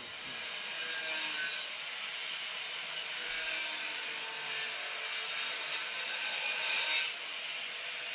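Natural stone cladding tile being cut: a steady gritty cutting and scraping noise that eases off slightly about seven seconds in.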